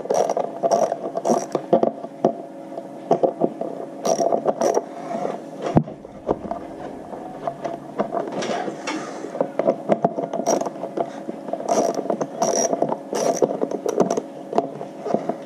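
Socket ratchet wrench clicking in several short runs as bolts are backed out.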